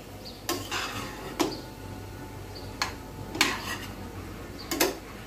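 A flat metal spatula stirring thick cooked vegetables in a metal pot. It clinks and scrapes against the pot's sides and bottom about five times at irregular intervals, with soft rustling of the vegetables between the strokes.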